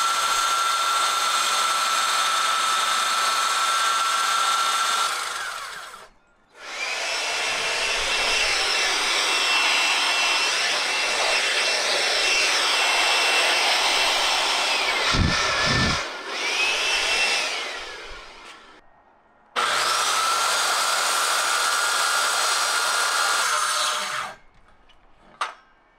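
Circular saw ripping a sheet of 3/4-inch plywood, a steady whine for about five seconds. Then a leaf blower runs for about eleven seconds with a higher steady whine that dips briefly, clearing sawdust off the sheet. Then the saw cuts again for about five seconds.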